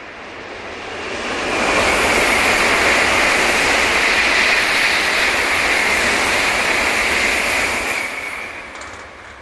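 Shinkansen bullet train passing close by at high speed, a loud rushing of air and wheels on rail. It swells over about a second, holds for about six seconds as the cars go by, then fades away near the end.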